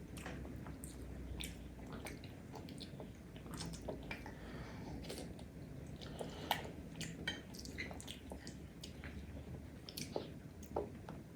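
Close-up chewing and wet mouth sounds of someone eating opor, with irregular small clicks and smacks; the sharpest comes about six and a half seconds in.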